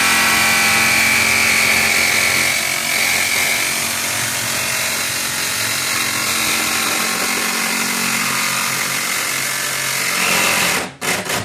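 Jigsaw running steadily as it cuts through a car's sheet-metal roof to open a hole for a sunroof. Near the end it stops after a couple of short bursts.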